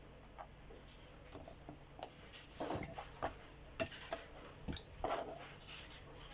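Kitchen utensils and dishes clinking and knocking while a lemon and cucumber drink is being prepared: scattered light taps that become busier about two seconds in.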